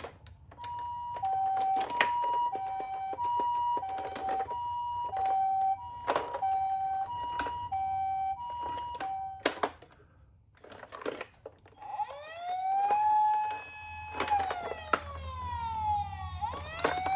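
Electronic siren of a toy ambulance minicar: a two-tone high-low siren alternating for about nine seconds, then, after a short gap with a few clicks, a wailing tone that rises, holds and falls, and starts rising again near the end. Sharp clicks and knocks sound throughout.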